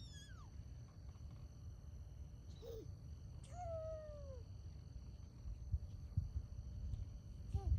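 A domestic cat meowing several times, short falling mews, the longest about three and a half seconds in, over a low rumble of wind or handling noise on the microphone.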